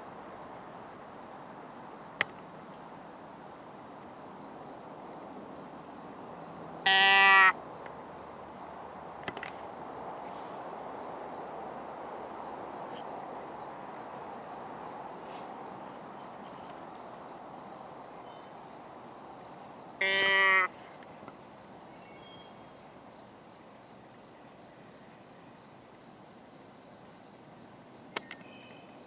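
A doe bleat deer call blown twice, about 13 seconds apart, each a short nasal bleat of under a second, imitating a doe to draw a deer in. A steady high chorus of insects runs underneath.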